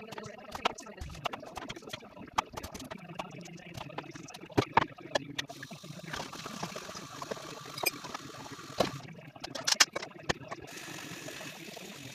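Jigsaw puzzle pieces being handled: a rapid, irregular run of sharp clicks and rustles, with two stretches of steady hiss, one in the middle and one near the end.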